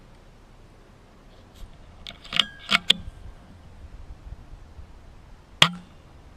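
Silenced .177 HW100KT PCP air rifle: a quick run of metallic clicks about two to three seconds in as the side lever is worked to cock it and load the next pellet, then one suppressed shot, a sharp crack with a short low thump, near the end.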